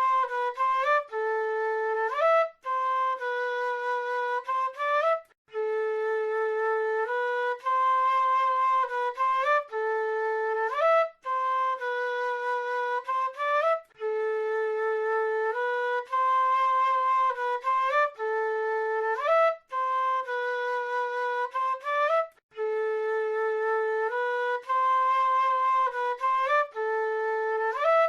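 South American flute playing a slow melody of mostly long held notes, each phrase ending in a quick run up to higher notes, with brief pauses between phrases.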